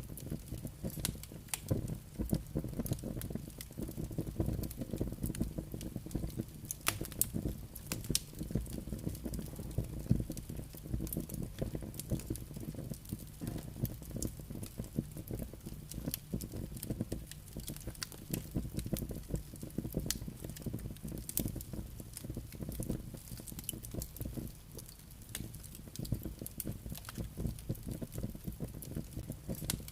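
Campfire crackling, with many sharp pops and snaps over a low rumble of burning and wind.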